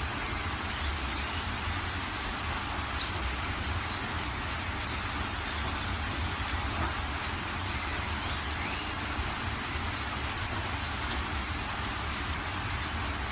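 Water rushing from the open spillway gates of a large dam, a steady, unbroken noise with a deep rumble under it.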